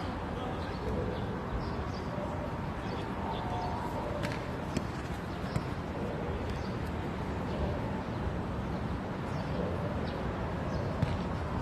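Football match play: steady background noise with a few sharp knocks of the ball being kicked or bouncing and players' footsteps, with faint distant voices.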